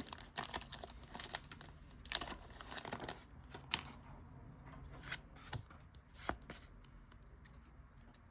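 Foil Pokémon booster pack wrapper being torn open and crinkled, dense crackling rustles that thin out after about four seconds into occasional single rustles and clicks as the cards are handled.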